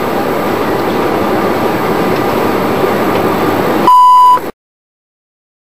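Steady cabin noise of an Airbus A310-300 airliner on the ground after landing, with its jet engines running. About four seconds in the noise stops abruptly and a short, loud, steady single-pitch beep sounds for about half a second, then cuts off suddenly.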